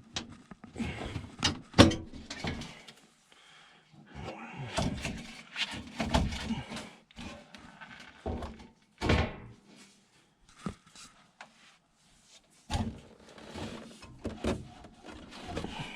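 Irregular clunks, knocks and scraping of hand work on a gas furnace's sheet-metal cabinet, with a few sharp knocks and short quiet gaps between them.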